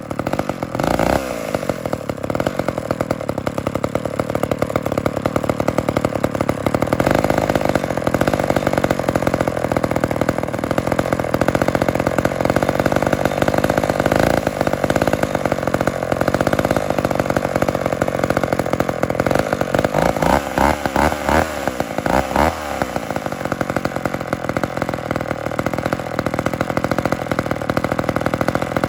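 McCulloch Mac 10-10 two-stroke chainsaw running hard at high throttle, cutting wood. Its engine speed swings up and down for a few seconds about two-thirds of the way through.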